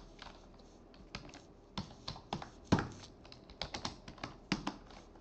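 Keystrokes on a computer keyboard, typing a command in short irregular runs of clicks with brief pauses between them.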